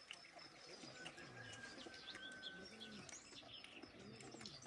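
Faint birdsong: a dove cooing in low, rounded notes a few times, with small birds chirping and a thin steady whistle held for about two seconds.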